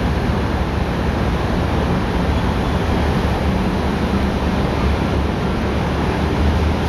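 Terrex eight-wheeled armoured vehicle's diesel engine running as it drives, a steady low rumble with a noisy hiss over it.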